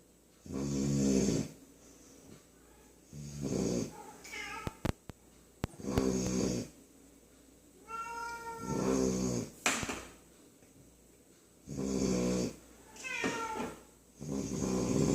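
Puppy snoring in its sleep: six deep, rasping snores, one on each breath about every three seconds. The snore around eight seconds in carries a high nasal whistle, and there are a few short clicks between snores.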